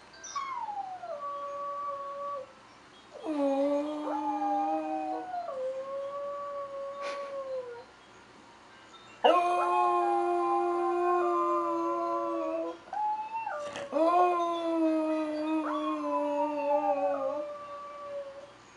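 Tricolour Pembroke Welsh corgi howling: a short falling first note, then three long howls of several seconds each, with brief pauses between them.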